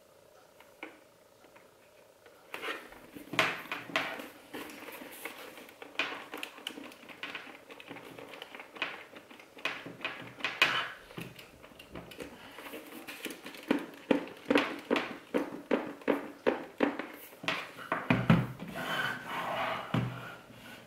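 A Bell Broozer motorcycle helmet being handled on a table: a string of knocks, clicks and rubbing against the shell and lining, with a run of evenly spaced knocks near the middle and a low thump near the end.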